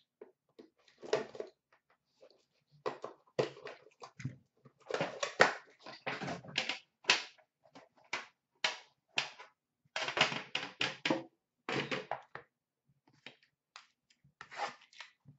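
Upper Deck The Cup metal card tin being handled and opened: an irregular run of short clicks, taps and knocks as the metal lid is lifted and the card box inside is slid out, with brief pauses.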